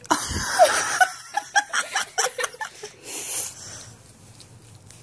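A person laughing in quick breathy bursts, after a low thump and rustle at the start; the laughter fades out about three and a half seconds in.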